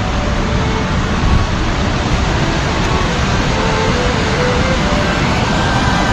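Steady rush of a large river waterfall, with water pouring over the falls.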